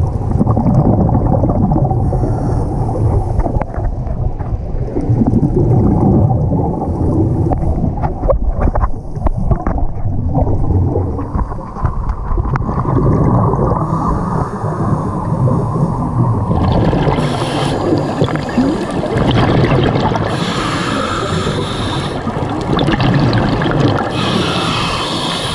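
Muffled underwater rumble and bubbling from scuba divers breathing through their regulators, heard through an underwater camera housing. A brighter hiss comes and goes, mostly in the second half.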